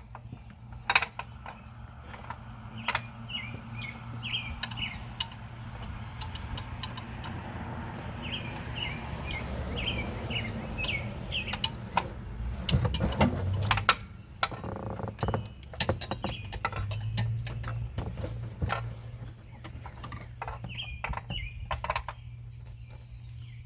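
Scattered clicks, knocks and clinks of hands and tools working a serpentine belt onto the engine pulleys, over a steady low hum. Birds chirp in short bursts at several points.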